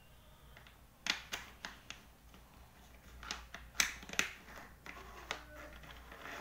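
Large plastic building blocks clicking and knocking as they are pressed together and set down on a tabletop: a quick run of four sharp clicks about a second in, then scattered single clicks.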